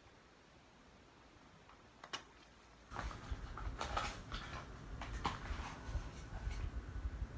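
Handling a small paperboard gift box: a single click about two seconds in, then, from about three seconds in, irregular rustling, scraping and clicks with low bumps as the box is opened and a diffuser bottle is slid out of it.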